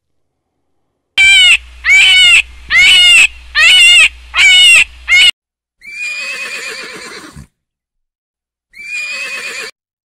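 Horse whinnying: a quick run of about six loud, quavering calls, then two longer, quieter whinnies near the end.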